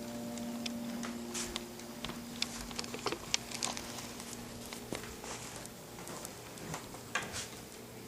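Light pattering footsteps with scattered taps and clicks, over a steady low hum that stops about five seconds in.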